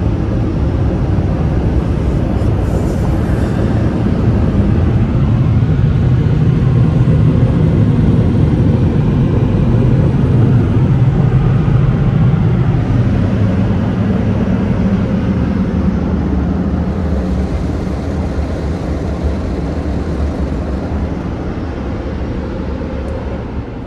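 Touch-free automatic car wash dryer blowing air over the car, heard from inside the cabin: a loud, steady, deep rush that swells toward the middle and slowly eases off near the end.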